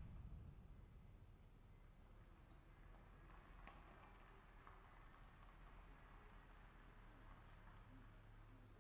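Faint, steady trill of crickets in a quiet storm ambience, with a low rumble easing off in the first second.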